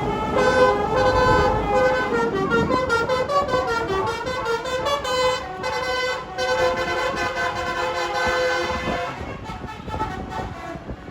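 Bus telolet air horn playing a tune of quick, stepping notes, fading out near the end.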